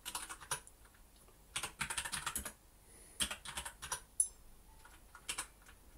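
Computer keyboard typing: quick keystrokes in four short bursts with brief pauses between, as a command is typed.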